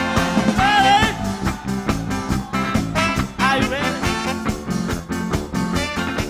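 Live band playing an upbeat rock/ska-style number with a steady driving beat; a lead line bends up and down in pitch twice.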